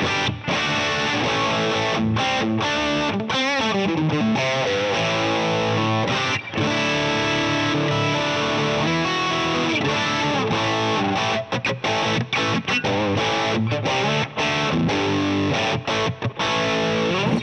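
Electric guitar played through a Fractal Axe-Fx III modelling a Plexi 50W 6CA7 amp, giving a crunchy overdriven tone, in a continuous run of chords and lead lines. About three seconds in comes a wavering, vibrato-laden bend, and near the end there are several short choppy stops.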